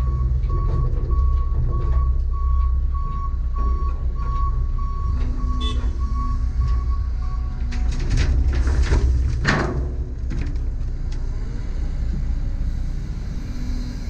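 A CAT 320 excavator drops a bucket of wet mud into a steel dump-truck bed about eight seconds in, a burst of heavy thuds and clatter as the load hits the bed, over the steady rumble of idling diesel engines. A high beeping alarm repeats through the first half.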